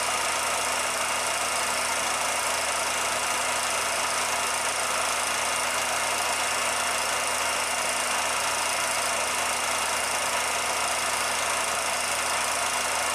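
A steady, unchanging machine-like running noise with a constant hum and hiss.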